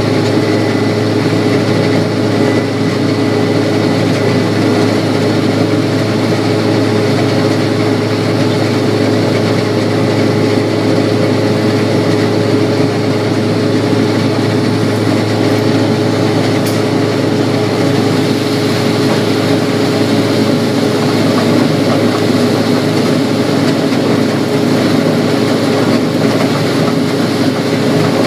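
Combine harvester running steadily while harvesting corn: a constant loud machinery drone with a steady low hum.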